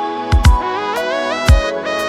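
Electronic background music: a synth melody stepping in pitch over deep kick-drum beats.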